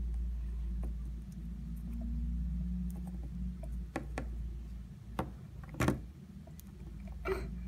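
Plastic Littlest Pet Shop figurines being handled and set down by hand, giving a few small knocks and clicks about four to six seconds in and one more near the end, over a steady low hum.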